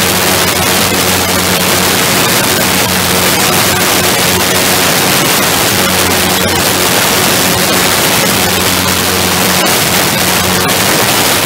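Heavy wind rush buffeting the microphone over the steady drone of a small ground-effect wing craft's engine, holding a constant pitch as it cruises at speed over the water.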